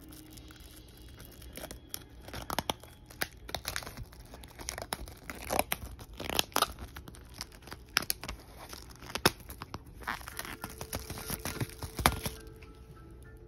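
Plastic shrink wrap being torn and peeled off a vinyl record sleeve: a run of sharp crinkling and ripping crackles that thin out near the end.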